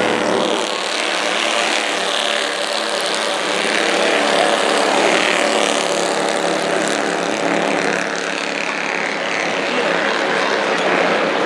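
Race car engines running steadily as cars circle the oval track, a continuous drone.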